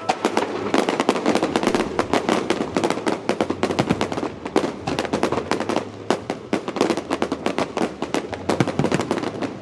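Fireworks crackling: a dense, rapid string of sharp pops and cracks that starts abruptly and keeps going, thinning slightly near the end.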